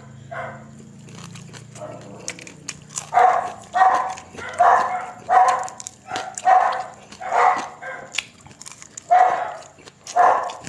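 A dog barking repeatedly, about one bark every 0.7 seconds, with a short pause before two last barks near the end.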